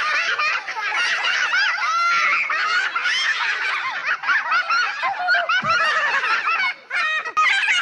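Many high-pitched voices laughing and giggling at once, overlapping without a break, with a brief lull just before the end.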